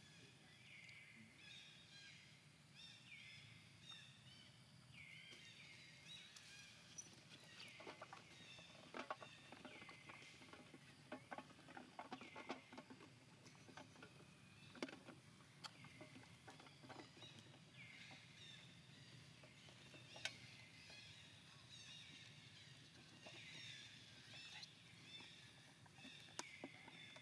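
Faint high chirping calls from small animals or birds, many in quick succession, each falling in pitch, with scattered sharp clicks and taps.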